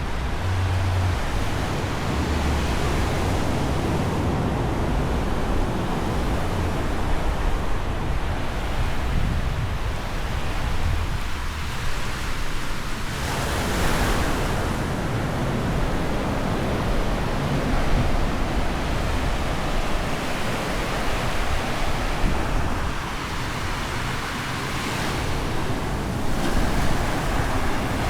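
Ocean surf breaking on a beach, with wind rumbling on the microphone; one wave crashes louder about halfway through.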